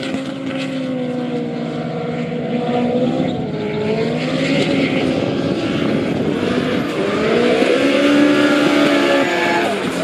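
V8 engine of a drift car (an S65B40-swapped BMW E46 M3) held high in the revs while sliding, its pitch dipping and rising with throttle changes and falling off sharply near the end, over a steady hiss of spinning tyres.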